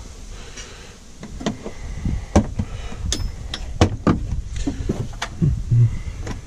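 Scattered sharp clicks and knocks of hands working plastic push clips and harness hardware into the plastic floor panels of a Polaris RZR XP 1000, over a low steady rumble.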